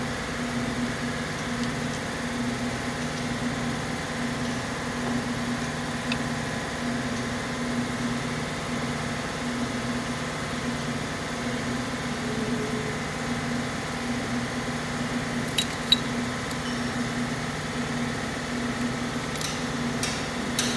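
Steady mechanical hum of a running machine, with a few sharp metallic clicks about three-quarters of the way through and again near the end as connecting-rod caps are handled on the crankshaft.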